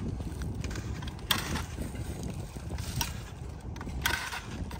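Battery-powered vine tying tool cycling three times as grape canes are tied to the trellis wire, each a short whirring snap, over a steady low rumble.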